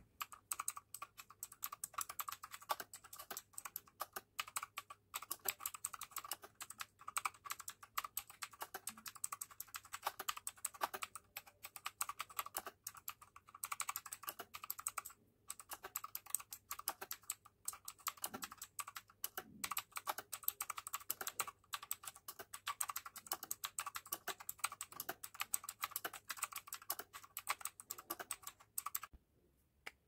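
Fast, continuous typing on a Redgear Shadow Blade mechanical keyboard fitted with HyperX PBT Pudding keycaps, key clicks following one another closely with a few brief pauses and stopping about a second before the end.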